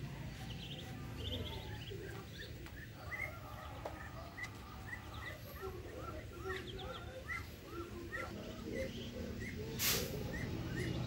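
Ducklings peeping: a steady string of short, high, arched peeps at a few per second. A brief rush of noise, the loudest moment, comes near the end.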